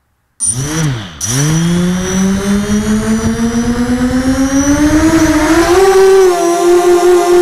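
A 250-size quadcopter's electric motors and propellers, heard from a camera on the craft. They start up suddenly about half a second in with a quick rise and fall in pitch, then climb steadily in pitch as the throttle comes up. Near the end the quad lifts off and holds a steady high whine that pulses quickly in loudness.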